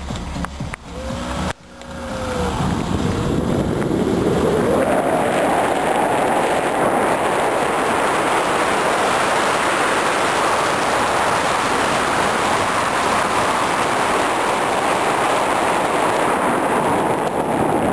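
Wind rushing over the microphone from a moving car, with the car's running noise under it; it builds up about three to four seconds in as the car gathers speed, then stays steady.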